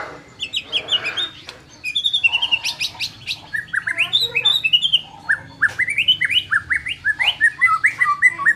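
White-rumped shama (murai batu) singing: quick runs of short, sharp chirps and sweeping notes, getting denser toward the end.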